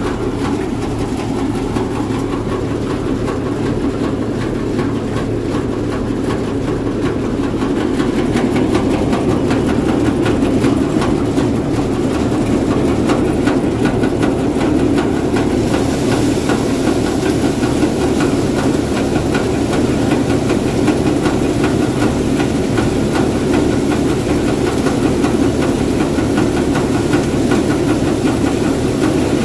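Tractor-driven Star 'Tokri model' wheat thresher running steadily while wheat sheaves are fed in: a loud, dense churning rumble over the steady hum of the Mahindra tractor's engine. About halfway through, a hissing rush of air and chaff grows louder.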